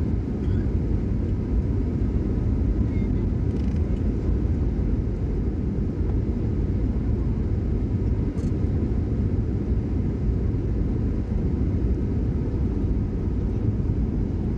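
Steady low rumble of jet engines and rushing air heard inside the cabin of a Boeing 737 descending on approach with its flaps extended, with a faint steady hum above it.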